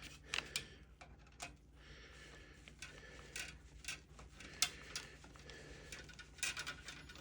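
Light, irregular clicks and taps of small metal assembly parts being handled, such as the planter's rods, screws and washers, with one sharper click about halfway through.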